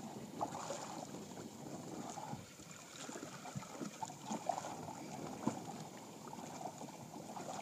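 Faint, irregular sloshing and small splashes of water against a boat's hull as a black drum is held at the surface and moved back and forth to revive it.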